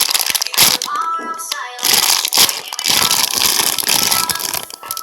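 Plastic packaging crinkling and rustling as it is handled, in loud spells about two seconds in and again from about three seconds, over background music.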